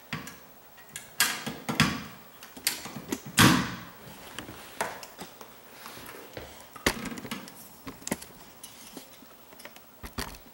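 Carpet installer's hand tools and power stretcher being handled and set down: a string of sharp clacks and knocks, the loudest about three and a half seconds in, with lighter clicks after.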